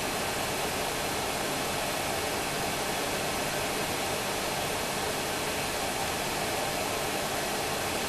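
Hot air rework station wand blowing a steady hiss of air while heating a brass threaded insert.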